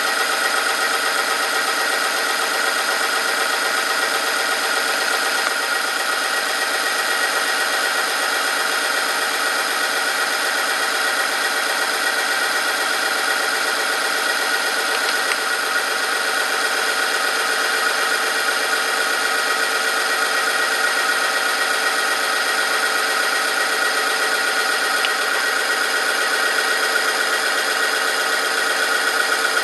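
Oil-film strength test machine running under load: its electric motor spins a steel ring through engine oil while a weighted lever presses a test sample against it, giving a steady high whine with a mechanical rattle. The oil heats from the friction as the test goes on.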